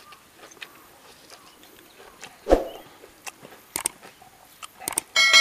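Close-miked eating by hand: scattered wet mouth clicks and chewing on a mouthful of rice, with one dull thump about halfway through. Near the end a sharp metallic clang rings out and keeps ringing.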